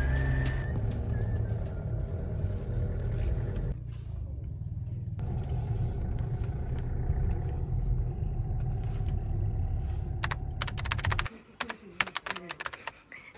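Steady low rumble of a car driving, heard from inside the cabin. It cuts off abruptly near the end, leaving a run of sharp clicks and rattles.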